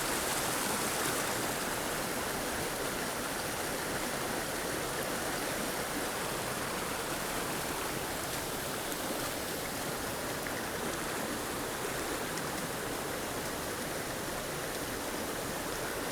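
Mountain creek flowing steadily, an even rush of water with no change.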